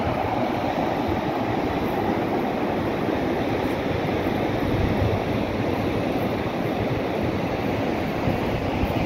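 Steady rushing roar of falling water from a waterfall cascade, an even noise with no change in level.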